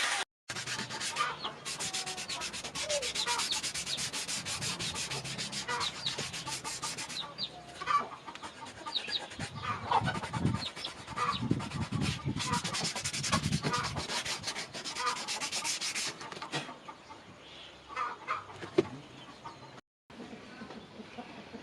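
Rapid abrasive rubbing on metal, a steady run of fine scraping strokes that pauses briefly around 8 s and fades after about 16 s, with chickens clucking.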